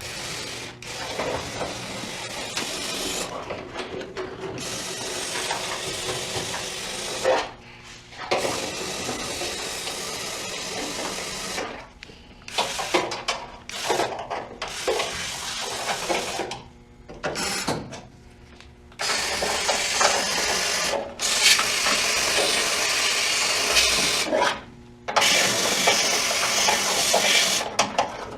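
Aerosol spray can hissing in stretches of a few seconds, stopping and starting, as rust-preventive oil is sprayed into the cab's panels and holes around the back window.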